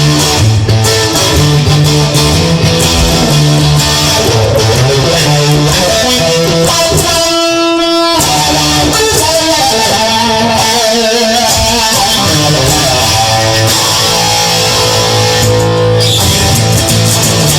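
Instrumental blues-rock music: loud electric guitar with bass, with one long held guitar note about seven seconds in.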